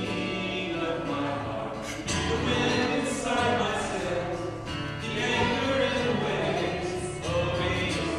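Live worship song: a group of voices singing together to acoustic guitar accompaniment.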